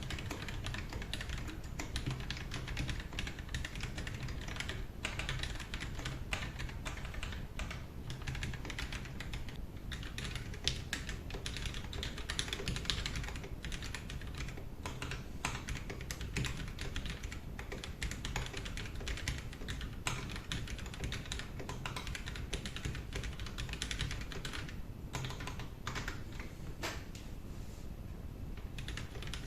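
Continuous typing on a custom mechanical keyboard: a fast, dense run of keystroke clacks with only brief pauses, as a sound test of the finished build.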